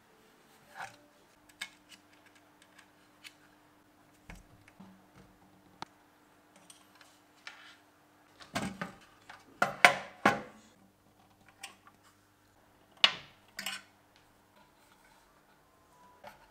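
Scattered clicks and knocks of small hard objects being handled, loudest in a cluster about nine to ten seconds in and again about thirteen seconds in, over a faint steady hum.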